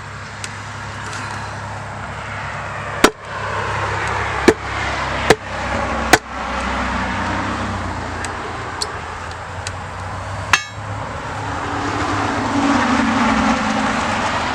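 About five sharp knocks of hammer blows, irregularly spaced through the first two-thirds, over steady road-traffic noise that swells near the end.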